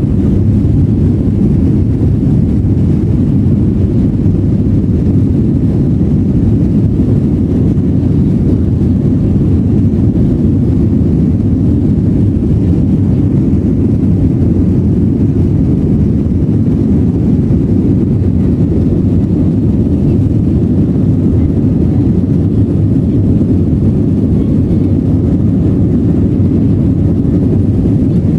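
Steady low rumble inside a jet airliner's cabin while the plane rolls along the airport pavement: engine and rolling noise.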